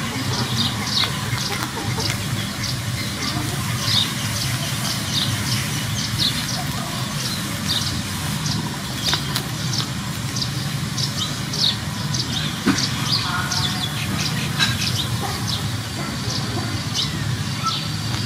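Small birds chirping busily and continuously, many short high chirps a second, over a steady low hum.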